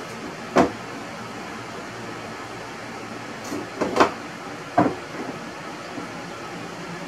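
A few sharp knocks of wood and hand tools handled against the plywood galley cabinet, one about half a second in and a small cluster around four to five seconds, over a steady background hum.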